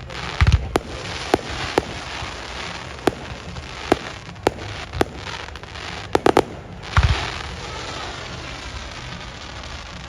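Fireworks display: a string of sharp bangs from bursting shells, more than a dozen, with a cluster just past six seconds. Two deeper booms come about half a second in and about seven seconds in, with a steady hiss of noise between the bangs.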